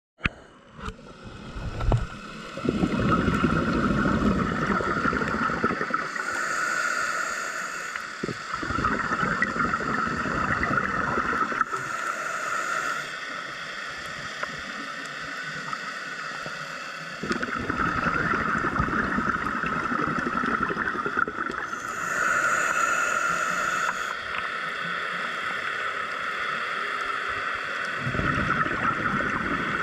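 Scuba diver breathing through a regulator underwater, heard through the camera housing: several seconds of bubbles rumbling out on each exhale, then a short hiss of air on each inhale, repeating every few seconds over a steady high hum.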